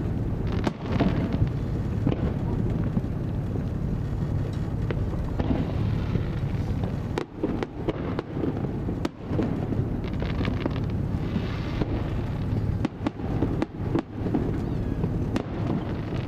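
Fireworks display: many sharp shell bursts in quick succession over a continuous low rumble, with crackling between the bangs.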